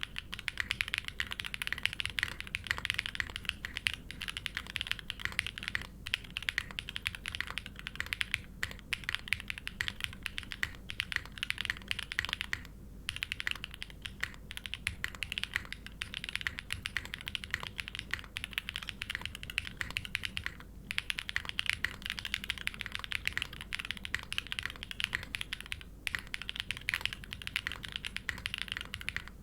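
Continuous fast typing on a plateless, O-ring-mounted custom mechanical keyboard (hex.50fe) with Gateron Raw switches with OP glass tops and GMK Shadow keycaps: a dense run of keystroke clacks, broken by a few short pauses.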